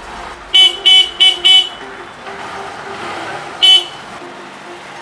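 Short, high-pitched beeps: four quick ones in a row about half a second in, then a single one after about three and a half seconds.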